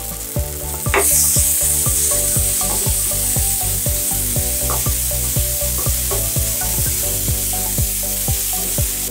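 Tomato-onion masala sizzling in oil in a kadai while a metal spoon stirs and scrapes it, working in freshly added chilli, coriander and garam masala powders. The sizzle comes up about a second in and holds steady, with repeated stirring strokes underneath.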